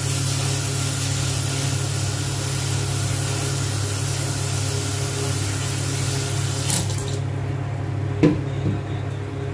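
Kitchen tap running in a steady hiss, turned off about seven seconds in, over a steady low hum. One knock near the end.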